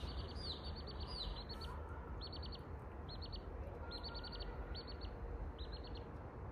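Chicks peeping: thin, high-pitched falling peeps at first, then short quick runs of four to six peeps about once a second.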